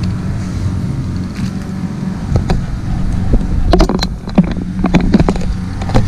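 A steady low hum, with a cluster of sharp clicks and rustling from about two seconds in until near the end, from gloves and tools being handled.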